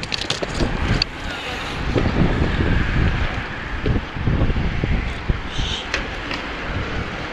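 Wind buffeting the microphone of a camera riding on a racing bicycle at speed: a loud, uneven rumble, with a few sharp clicks in the first second and one more near the end.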